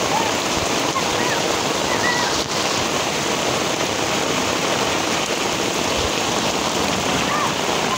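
Heavy rain falling steadily on pavement and roofs: a dense, even hiss that does not let up.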